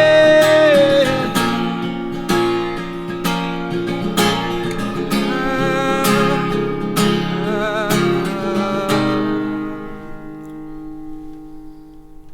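Acoustic guitar strumming the closing chords of a song, with a held sung note over the first second. The final chord is left ringing and fades away from about nine seconds in.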